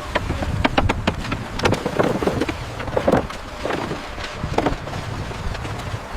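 Construction-site clatter: many irregular knocks and clanks over a steady low rumble of machinery.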